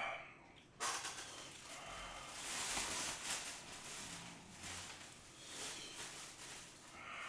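Crinkling and rustling plastic as a takeout food container and a plastic bag are handled, starting suddenly about a second in and going on unevenly.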